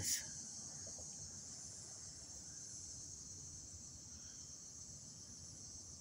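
Faint, steady high-pitched chorus of evening insects, over a low background rumble.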